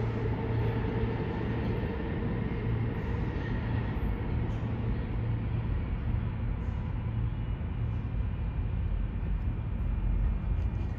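New York City subway train running in the station: a steady rumble and low hum, with a faint whine that fades over the first half.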